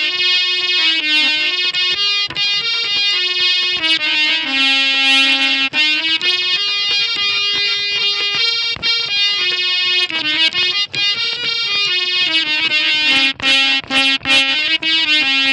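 Harmonium (baja) playing a Sindhi folk melody in sustained reedy notes that step up and down in pitch, with short hand strokes on a dholak drum under it.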